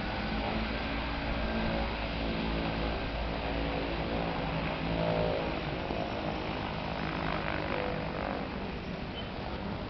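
Twin-engine floatplane taxiing on the water, its engines and propellers running with a steady drone that wavers slightly in pitch.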